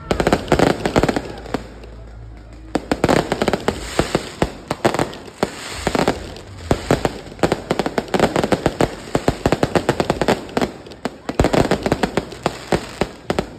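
Fireworks going off: rapid clusters of sharp crackling pops and bangs, with a short lull about two seconds in.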